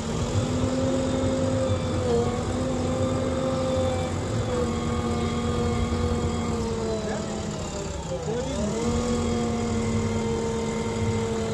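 JCB 3DX backhoe loader's diesel engine running steadily at raised revs while the backhoe arm digs. The engine note sags briefly about eight seconds in and then picks back up.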